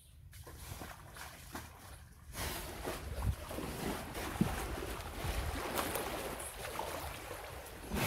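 Water sloshing and splashing as a Murrah buffalo bull wades into a pond and moves about in it, growing louder about two seconds in.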